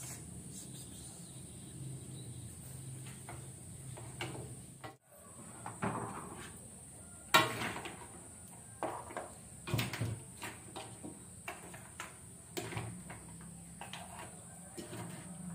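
Boiled mangrove clam shells clattering and a spatula scraping a metal wok as the clams are scooped into a plastic bowl: a run of irregular clacks and knocks, the sharpest about seven seconds in, over a low steady hum in the first few seconds.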